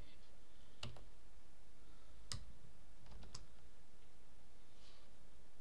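A few separate computer keyboard key clicks, about a second apart, over a low steady background hum.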